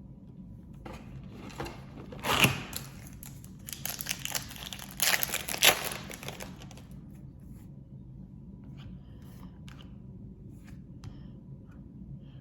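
A trading card pack's wrapper being torn open and crinkled, in several rustling bursts over the first seven seconds, then a few faint ticks of handling.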